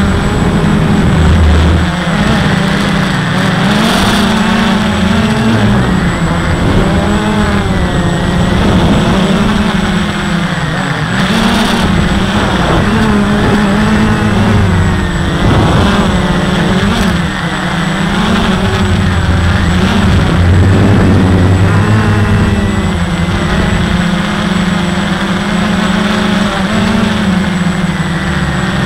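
Walkera QR X350 quadcopter's brushless motors and propellers buzzing loudly, close to the onboard camera, the pitch rising and falling repeatedly as the throttle changes. A thin steady high whine sits above it.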